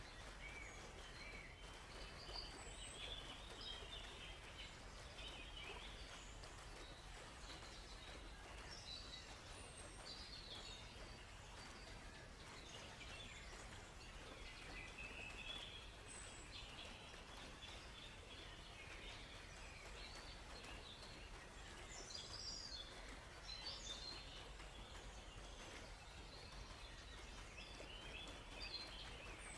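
Faint forest birdsong: several small birds chirping and trilling in scattered short phrases, over a steady background hiss.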